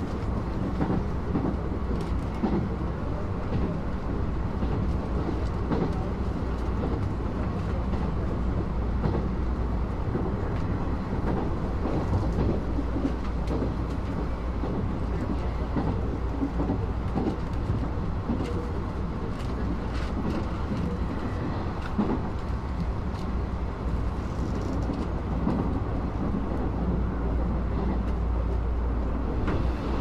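Cabin sound of a Nishitetsu Tenjin Ōmuta Line limited express train running: a steady low rumble of wheels on rails, with scattered faint clicks.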